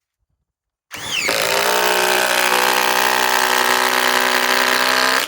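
Bosch GDR 18V-1950 C cordless impact driver triggered: its motor spins up about a second in, runs loud and steady at full speed with no hammering, and cuts off suddenly at the end.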